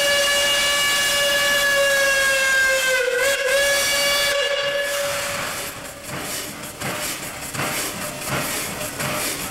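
Steam locomotive whistle, the Mitsubishi Type 80 No. 851's, sounding one long steady blast that sags briefly in pitch about three seconds in and cuts off about five seconds in. Then steam hisses.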